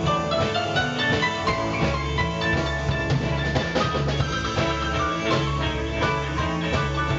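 Live rock and roll band playing an instrumental break, with drums and bass keeping a steady beat under the lead instruments.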